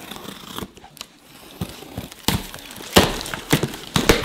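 Cardboard shipping boxes being torn open: light scratching and picking at the taped seams, then from about two seconds in a run of sharp, loud rips as the tape and flaps are pulled apart.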